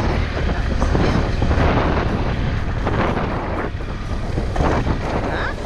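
Motorcycle engine running at a steady low speed on a dirt track, with wind gusting over the microphone in repeated rushes.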